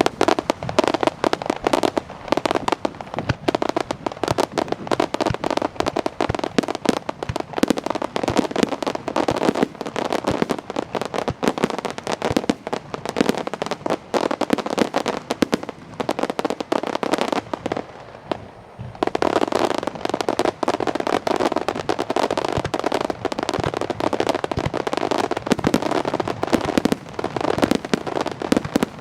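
Starmine fireworks barrage: a dense, rapid string of shell bursts and crackles, easing for a moment about two-thirds of the way through, then resuming.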